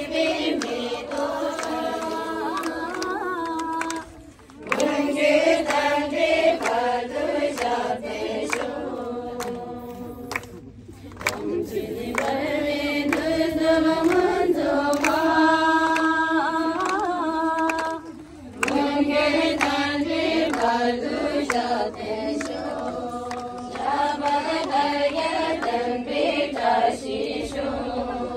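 A group of voices singing a slow melodic chant together, with long held notes and short breaks about four, eleven and eighteen seconds in.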